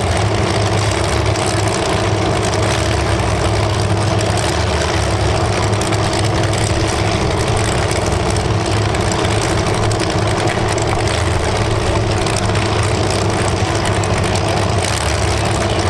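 Engines of demolition derby cars running together in a steady drone, idling and rumbling between bouts of action.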